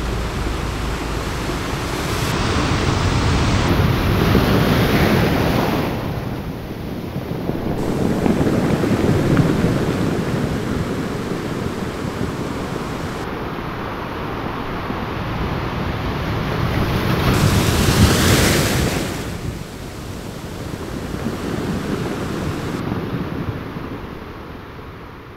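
Ocean surf: waves washing in and drawing back in slow swells every few seconds, fading out near the end.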